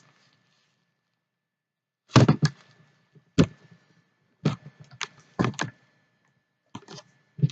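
Irregular knocks and thumps, about ten short strikes at uneven spacing, starting about two seconds in after a near-quiet pause.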